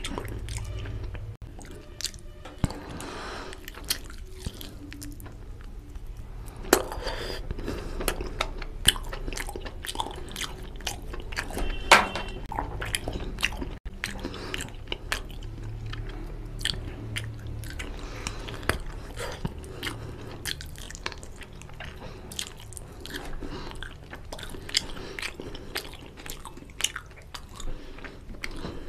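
Close-miked wet chewing and lip-smacking of a person eating curry and rice by hand, with many irregular clicky mouth noises, and fingers squishing through oily curry and rice.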